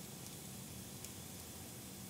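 Fire burning in a fireplace: a steady soft hiss with a few faint crackles, one about a second in.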